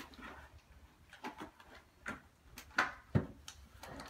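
Dog nosing at a plastic padded mailer on a rug: about five short taps and crinkles, the loudest a small thump about three seconds in.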